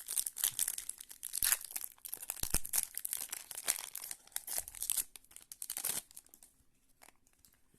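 Plastic foil trading-card pack wrapper crinkling and tearing as it is handled and opened, in dense irregular crackles that die down about six seconds in.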